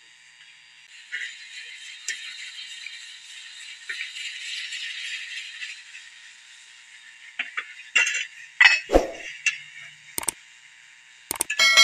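Metal utensils being handled: a slotted spoon scraping and rattling in an aluminium pot of sliced onions, then a run of sharp metal clinks and knocks over the last few seconds.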